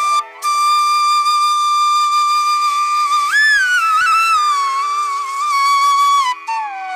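Background music: a flute plays a slow melody of long held notes with bends and slides, over a faint steady drone.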